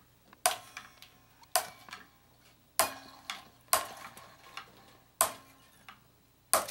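Six tensioned steel electric-guitar strings snipped one after another with diagonal cutters: six sharp metallic snaps about a second apart, each with a brief twanging ring as the string lets go.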